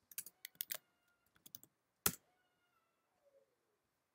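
Computer keyboard typing: a quick run of keystrokes, a few more after a short pause, then one louder single keystroke about two seconds in.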